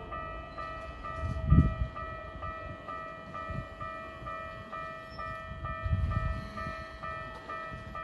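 Japanese level crossing warning bell ringing over and over, about two strokes a second: the crossing is closed for an approaching train. Low rumbles swell about a second and a half in and again near six seconds.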